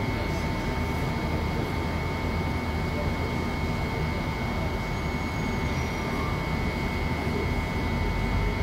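Double-deck electric train standing at the platform, its onboard equipment running with a steady low hum and a constant high whine.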